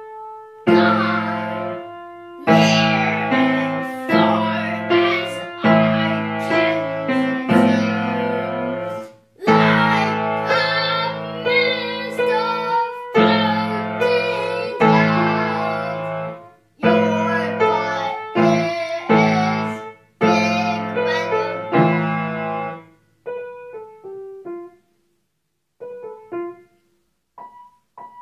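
Upright piano being played: phrases of full chords over low bass notes, broken by short pauses, then thinning about 23 seconds in to sparse, quieter single notes with gaps between them.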